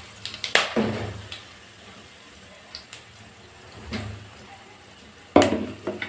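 A metal slotted spatula knocking and scraping against a steel kadai a few times, loudest about five seconds in, over the quiet frying of whole spices and fennel seeds in hot oil.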